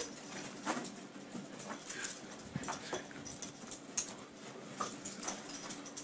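Dog whimpering now and then while it plays, among scattered light taps and scuffles.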